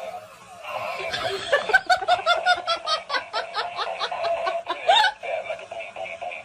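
Laughter: a fast, even run of short ha-ha pulses from about one second in until about five seconds in.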